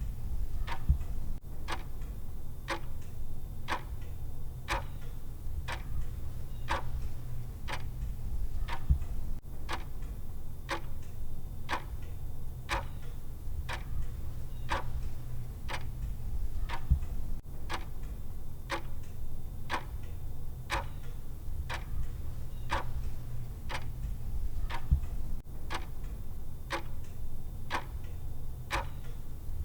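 Clock tick sound effect of a countdown timer, ticking evenly about once a second over a steady low hum.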